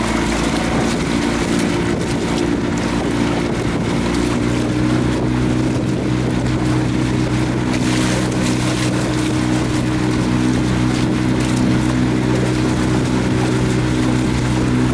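Trimaran's motor running steadily under way at about nine knots, its note shifting slightly about four seconds in. Water rushes and splashes along the outrigger hull as it cuts through light chop, with wind on the microphone.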